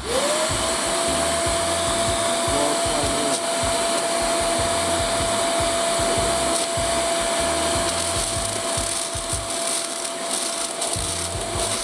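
Kärcher WD 3 wet and dry vacuum cleaner switched on in blower mode, with the hose in the rear outlet. Its motor spins up with a quickly rising whine, then runs steadily with a rush of air.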